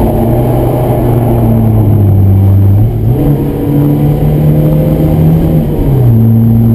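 Ford Escort Mk1 1100's four-cylinder engine running hard under way on track, heard from inside the cabin. Its pitch sags slowly, jumps up about three seconds in after a brief dip in loudness, then drops back near the end.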